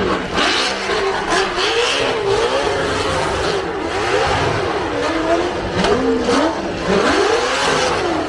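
Car engine revving hard, its pitch rising and falling over and over, about once a second: a drift car being worked on the throttle.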